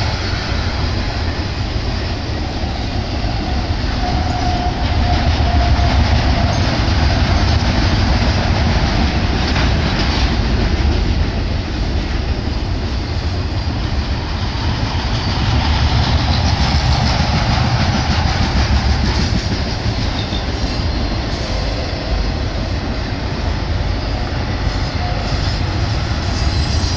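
A BNSF intermodal freight train's flatcars loaded with truck trailers rolling past: steel wheels on the rails making a steady low rumble that swells and eases slightly as the cars go by.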